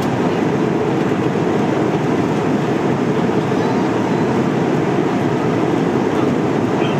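Steady low roar of an Airbus A330-300's engines and airflow heard inside the passenger cabin in flight, even and unchanging.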